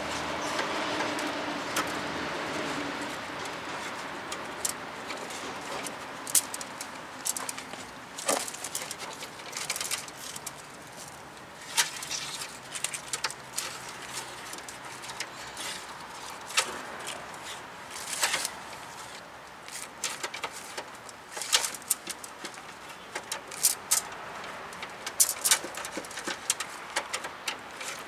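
Coiled metal brake line being snaked through a car's rear suspension and underbody, with irregular sharp clicks and taps as the tubing knocks against metal parts.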